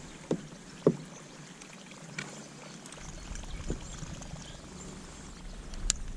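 A few light knocks and bumps aboard a small fishing kayak, the loudest about a second in, over faint water and wind noise.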